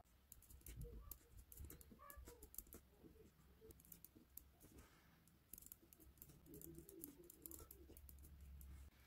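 Faint scratching and tapping of a pen writing numbers on squared paper, in short irregular strokes.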